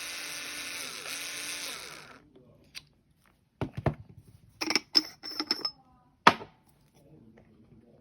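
Bosch IXO 5 cordless screwdriver turning a KINGrinder K5 hand coffee grinder through a drive adapter, running steadily and stopping about two seconds in. After that come several clicks and knocks of the tool and grinder being handled, the sharpest one near the end.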